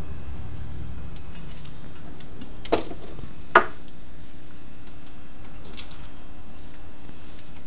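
Small metallic clicks from a barber's tools at work on a haircut, with two sharper clicks a little under a second apart near the middle, over a steady background hiss.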